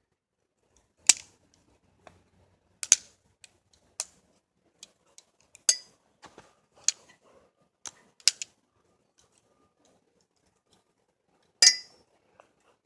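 Lego butterfly knife being flipped and handled: sharp plastic clicks and clacks at irregular intervals, the loudest and slightly longer one near the end.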